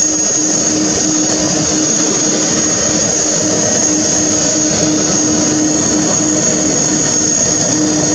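Emirates Airbus A380 jet engines running, a steady loud rush of noise with a constant high whine and a steady low hum.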